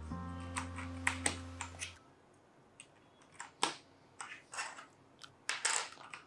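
Background music with a held chord, ending about two seconds in. After it, a string of irregular plastic clicks and clacks: keycaps being pressed onto a Cherry MX Red mechanical keyboard.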